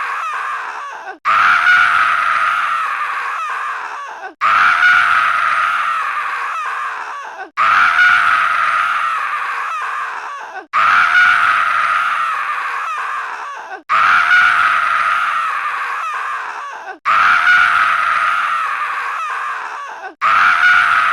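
A stock sound effect of a long, scream-like cry, looped. Each cry starts loud and fades over about three seconds, then breaks off and starts again, about seven times in all.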